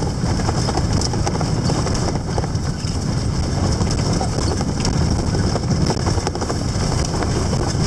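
Steady, loud rumble of a vehicle driving over a rough dirt track, heard from inside the cabin, with scattered rattles and knocks.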